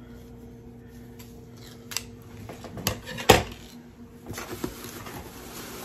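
A few sharp snips and clicks of scissors cutting a tag off a shirt, the loudest about three seconds in, followed by the rustle of clothing being handled.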